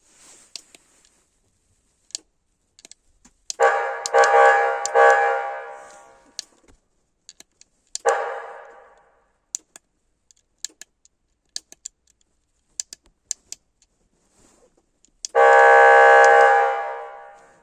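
Horn blasts from a KAMAZ fire engine's signal system: a steady, buzzy multi-pitch tone sounded three times, in several quick taps about 3.5 s in, briefly about 8 s in, and a loud held blast near the end, each tailing off. Sharp clicks sound between the blasts.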